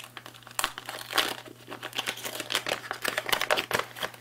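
A foil RF-shielding bag sealed with metallic tape crinkling and crackling in quick, irregular bursts as hands peel the tape back and pull the bag open.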